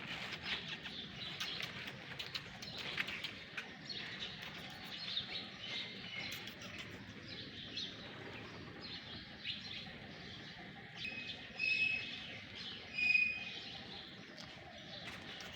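Birds chirping over steady outdoor background noise, with many short high chirps and two louder chirps near the end.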